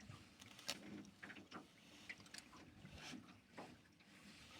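Near silence, with a few faint scattered clicks and knocks.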